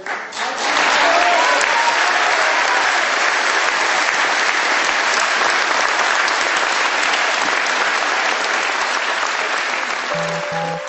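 Large rally crowd applauding, a dense and steady clapping. Near the end, music with a regular pulse comes in.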